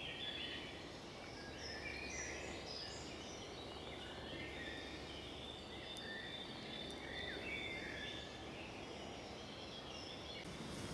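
Woodland songbirds singing and calling, several short warbled phrases overlapping, over a faint steady low hum.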